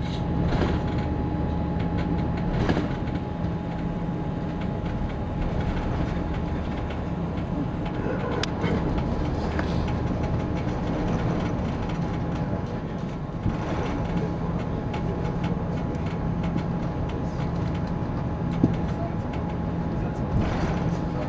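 Cabin noise inside an Airbus A340-300 taxiing: a steady rumble from the idling CFM56 engines and the rolling wheels, with a steady hum. A few brief thumps come through, about three seconds in, near the middle and near the end.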